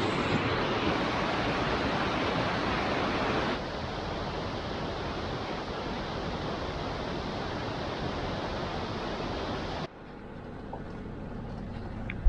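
Steady rush of running floodwater. It drops in level a few seconds in and again, sharply, about ten seconds in, then goes on more quietly.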